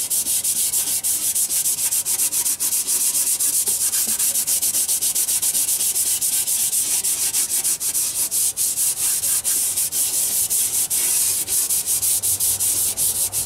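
Scotch-Brite pad scrubbing the wet lower liner sealing bore of a CAT D13000 engine block, cleaning it with WD-40: a steady, rapid rasping rub that stops just at the end.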